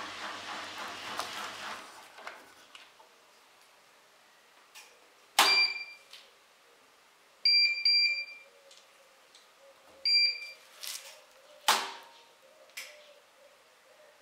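Siemens iSensoric WM12N2K7GR washing machine: the drum's running noise fades out in the first two seconds, then the control panel beeps briefly: a single beep, a quick cluster of beeps, then one more, with a few sharp clicks among them.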